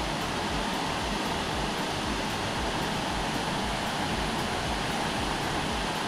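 Steady rushing of a small waterfall and stream cascading over rocks into a pool, with a low rumble pulsing about three times a second underneath.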